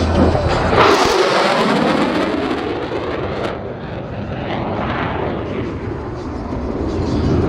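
F-35A fighter jet's afterburning turbofan in a high-speed pass just below the speed of sound. A sudden loud rush as it passes about a second in, then a roar that falls in pitch and trails off.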